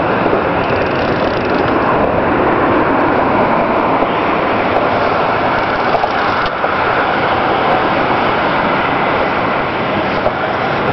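Steady, loud rushing noise of wind buffeting the boat-mounted camera's microphone, with no distinct events.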